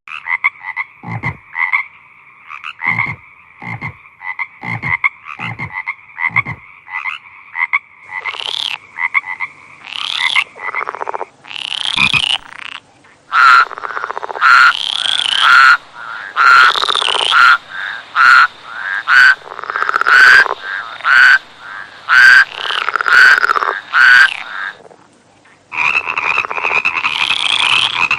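Frogs calling: a steady high trilling chorus with short low croaks about once a second, giving way to loud, sharp calls repeated about once a second. Near the end, after a brief gap, another trilling chorus starts.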